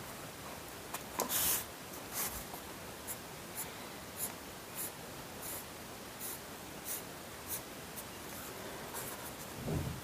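Felt-tip marker scratching on paper in short repeated strokes, about one to two a second, as lines are hatched into a drawing.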